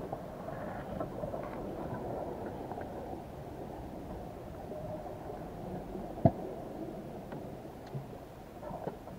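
Muffled underwater sea noise heard through an action camera's waterproof housing on a crab trap on the seabed, with scattered small clicks and one sharp knock about six seconds in.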